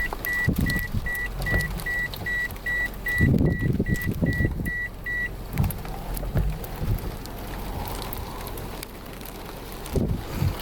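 A high electronic beep repeating about twice a second, stopping about five seconds in, over the rumble and buffeting of a moving vehicle.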